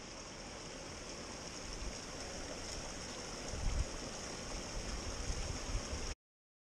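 Stream water running over rocks, a steady rushing hiss, with a few low thumps about three and a half seconds in. The sound cuts off abruptly near the end.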